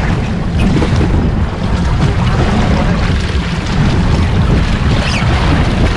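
Wind buffeting the microphone on a boat at sea, a steady low rumble over the wash of open water.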